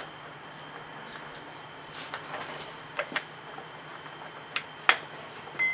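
A few light metallic clicks as a splined differential side gear is slid onto and handled against the 19-spline ends of steel axle shafts, test-fitting the newly milled splines. The clicks come in pairs, about three seconds in and again near the end, over a faint steady hum.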